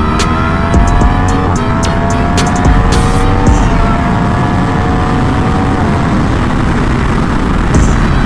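Sport motorcycle engine pulling through the gears at highway speed: its pitch climbs slowly and drops twice as it shifts up, then fades under heavy wind rush on the microphone.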